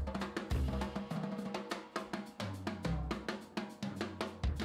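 Background music: a drum kit playing a busy, quick beat over a bass line.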